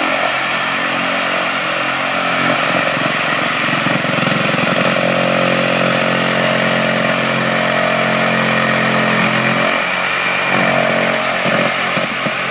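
A motor running steadily and loudly, with a constant high-pitched whine over a low hum.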